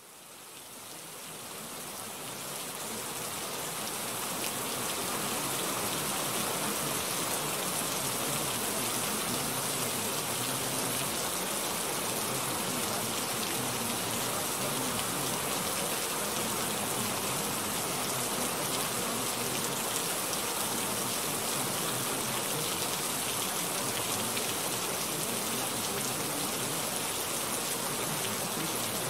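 Steady hiss of rain, an even wash of falling-rain noise that fades in over the first few seconds and then holds level.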